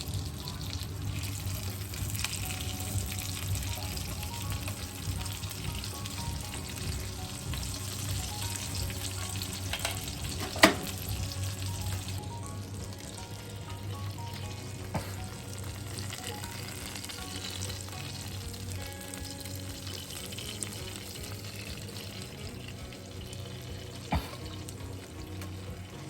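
Food frying and sizzling in a pan. There is a sharp knock about ten seconds in and two lighter knocks later. Faint background music plays underneath.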